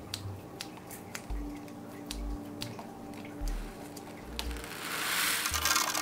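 Background music with a soft bass pulse and scattered light clicks. Near the end comes a rising, hissing rattle of small gravel being tipped from a bowl.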